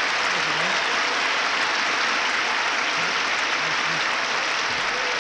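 A large audience applauding steadily, a dense even patter of many hands clapping.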